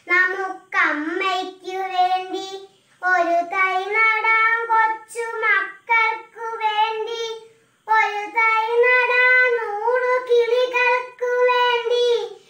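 A young girl singing solo and unaccompanied, in long sustained phrases with brief pauses for breath about three and eight seconds in.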